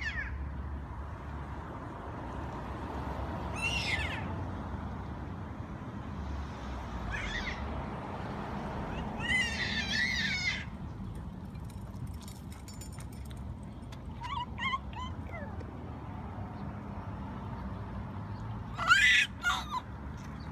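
Steady low outdoor rumble with about five short, high-pitched calls scattered through it, the loudest near the end.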